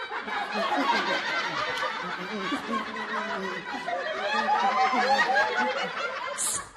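Studio audience laughing: many voices together, sustained, breaking off just before the end.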